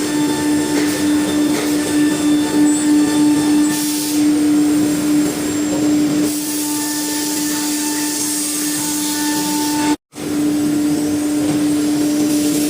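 CNC router running as it cuts plywood: a steady whine from the high-speed spindle over a noisy rush of cutting. The sound drops out for a moment about ten seconds in, then resumes unchanged.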